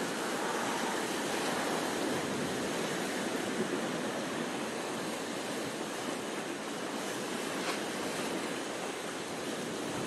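Sea surf breaking and washing around rocks along a rocky shore: a steady rush of waves, a little fuller in the first few seconds.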